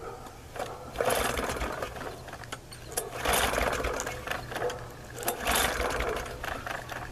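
MTD push mower's small gasoline engine being pull-started cold, in repeated surges about every two seconds as it tries to catch. Its carburetor is overflowing with gas, a sign the carburetor was not drained before storage.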